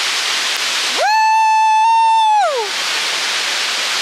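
Steady roar of a large waterfall. About a second in, a loud, high held tone cuts in for about a second and a half, sliding up at its start and down at its end, while the water noise drops away.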